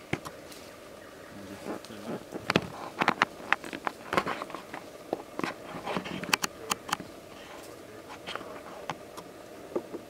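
Lyrebird scratching and raking through dry leaf litter while it forages: a busy run of crackles and snaps, densest in the middle few seconds.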